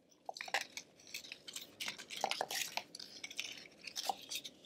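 Painted cardboard egg-carton cups being handled and threaded onto yarn over a plastic tray: irregular light rustling, scraping and small taps.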